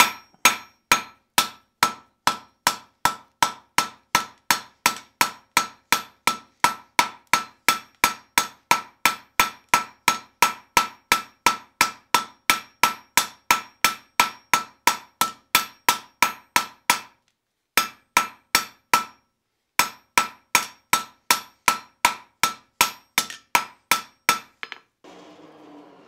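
Steel hand hammer striking the hot end of a twisted steel bar on a Fontanini anvil in an even rhythm of about two and a half blows a second, each blow ringing. This is the forging of a rounded end so the bar will pivot. There are two short breaks about two-thirds through, and the hammering stops near the end.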